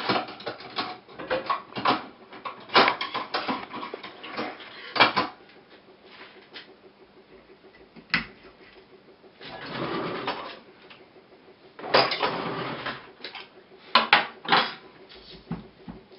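Steel knife tip being pushed and twisted into one of a coconut's eyes to bore a hole for draining the water: clusters of sharp clicks and scrapes of the blade against the shell, with a short stretch of rasping about ten seconds in.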